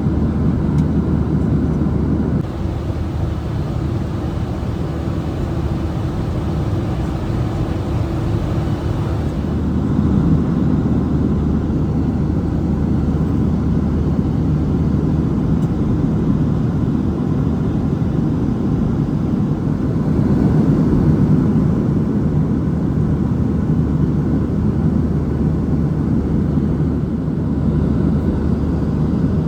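Boeing 737-700 cabin noise in flight: a steady rush of airflow over a low drone from its CFM56 turbofan engines. The mix of hum and rush shifts abruptly about two seconds in and again near ten seconds.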